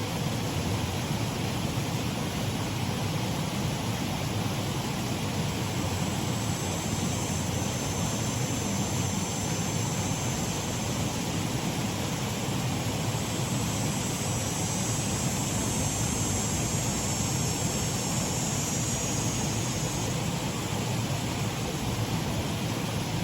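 Shallow waterfall on a mill race stream, water running and splashing in a steady rush. A faint thin high sound rides over it through the middle.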